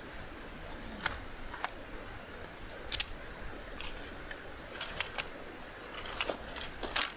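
Wooden folding camp table being opened out: its metal hinges and wooden legs give a series of sharp clicks and knocks as the frame unfolds, over a steady outdoor hiss.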